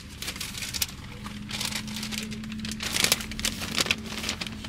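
Paper takeout bag crinkling and rustling as it is handled, in irregular crackly bursts that are loudest about three seconds in.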